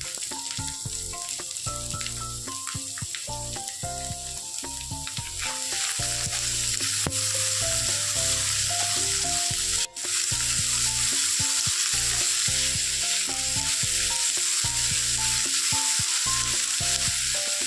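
Diced vegetables sizzling as they fry in hot oil in a stainless-steel kadai, stirred with a wooden spatula. The sizzle grows louder about a third of the way in, and soft background music with a melody plays underneath.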